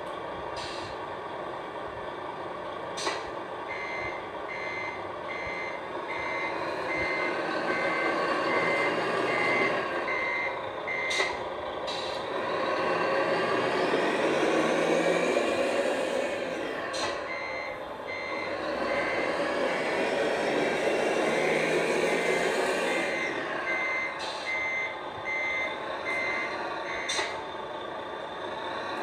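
Servonaut sound module of a 1/14-scale RC Volvo FH16 playing a truck engine with a reversing beeper: two runs of steady, evenly spaced beeps, the sign that the model is backing up. The engine sound rises and falls in pitch underneath, strongest between the two runs, with a few short sharp clicks.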